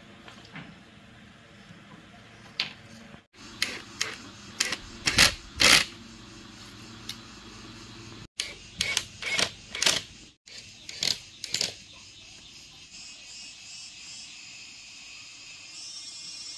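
Sharp, irregular knocks and clacks in short bursts, the loudest about five to six seconds in. A steady high-pitched trilling sets in about two-thirds of the way through.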